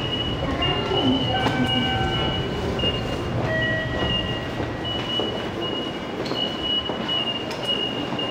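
Station noise of Seibu Railway electric trains: a steady rumble with a high wheel squeal that keeps breaking off and coming back.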